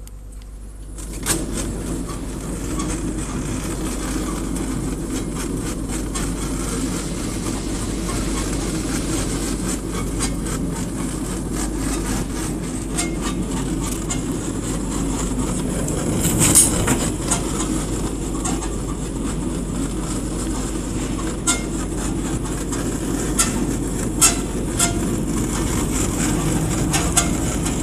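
Pallet stretch-wrapping machine running, its turntable drive rotating a loaded pallet as it is wrapped in stretch film. A steady mechanical noise starts about a second in, over a constant hum, with scattered sharp clicks.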